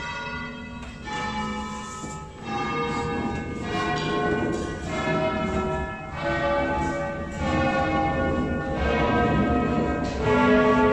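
A concerto of eleven church bells tuned in A, most cast by Cavadini in 1931, rung by hand from ropes. Single bell notes at different pitches follow one another about once a second, each ringing on under the next.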